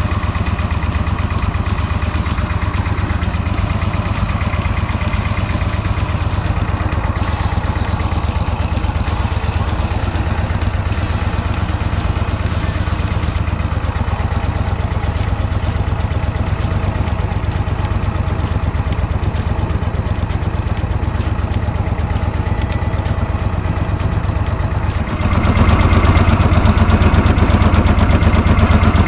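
Small fishing boat's engine running steadily under way, then getting louder about four seconds before the end.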